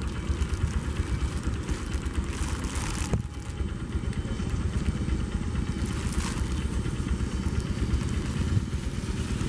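High-speed inspection train cars rolling slowly past, a steady rumble of wheels on the track with a few faint clicks, and wind buffeting the microphone.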